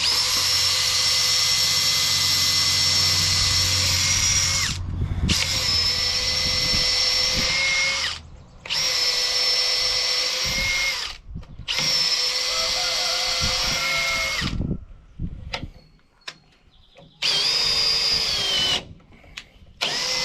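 Cordless drill boring into black locust hardwood with a screw-tipped bit, its motor whining steadily in about five runs of two to five seconds each, stopping and restarting between them. The bit has gummed up and won't bite into the wood.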